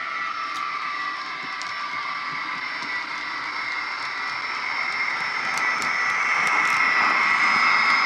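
Hornby HM7000 sound decoder in a Dapol Class 73 model locomotive, playing the electric-mode sound through the model's speaker: a steady electric whine and hum. It grows louder from about five seconds in as the model draws close, with a few light clicks.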